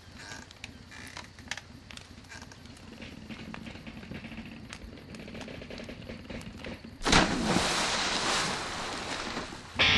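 A low, quiet ambient rumble. About seven seconds in, a sudden loud rushing burst cuts in and slowly dies away, and loud music comes in right at the end.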